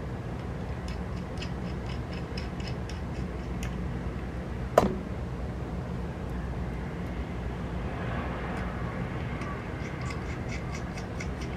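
Small metallic clicks and ticks of a precision screwdriver handling and driving tiny screws into a camera's rangefinder assembly: two runs of light ticks, about three or four a second, and one sharper click that rings briefly about five seconds in. A low, steady hum lies underneath.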